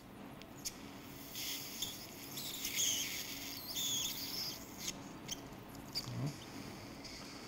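Surgical suction tube working in the ear canal, drawing air and fluid in irregular hissing, squeaky bursts with short whistling glides, strongest in the middle, among a few light instrument clicks.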